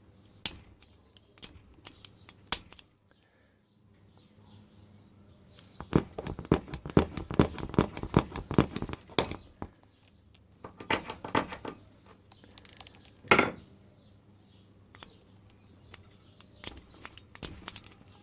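A spring-loaded centre punch on brass, clicking and snapping over and over. There are a few single clicks, then a rapid run of clicks lasting about three seconds, a shorter run, and one loud sharp snap near the end. The punch keeps failing to load and strike properly, which the owner calls bloody hopeless.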